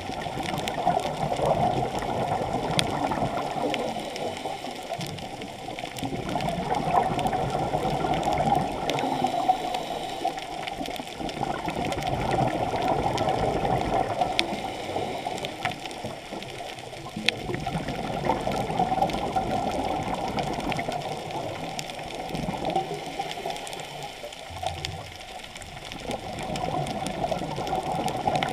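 Muffled underwater water noise heard through an action camera's waterproof housing. It swells and fades about every six seconds, with a few faint clicks.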